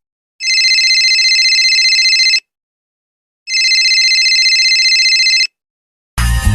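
Telephone ringing twice, each ring a steady high trill of about two seconds with about a second of silence between. Music cuts in just before the end.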